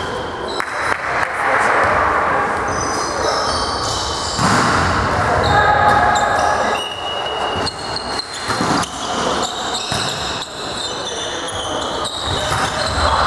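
Volleyball play in a sports hall: sharp ball hits and short high squeaks, over players' and spectators' voices and shouts echoing in the hall. The crowd noise swells for a couple of seconds near the middle.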